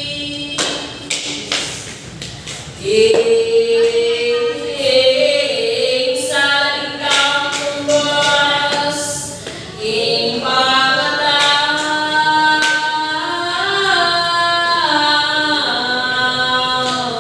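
Unaccompanied voices singing a slow devotional chant in long held, gliding notes, with a few scattered knocks.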